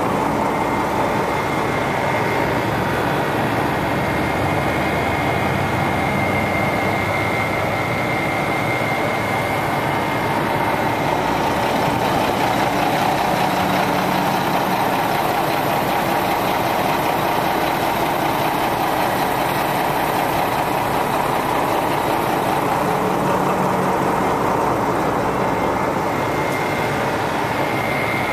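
Heavy truck engine idling steadily, with a faint high-pitched whine over it in the first third and again near the end.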